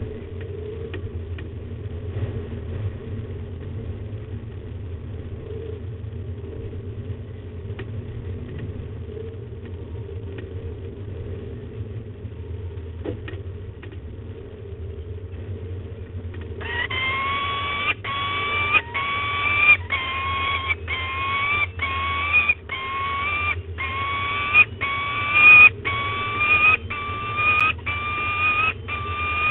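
Peregrine falcon calling: a run of whining calls, each rising slightly in pitch, repeated about once a second from a little past halfway in, over a steady low hum.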